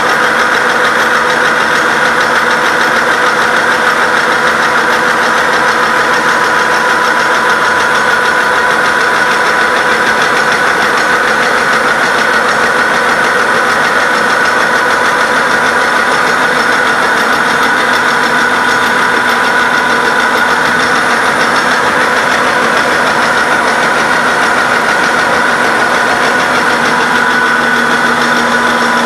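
Heavy-duty all-geared vertical milling machine running steadily while milling steel, with a constant whine over the dense noise of the cut.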